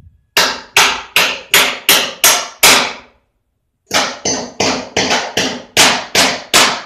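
Hammer blows struck at a wall-mounted electrical panel box, about three a second: a run of about seven, a short pause a little after the third second, then another quick run. Each blow is sharp with a brief ring.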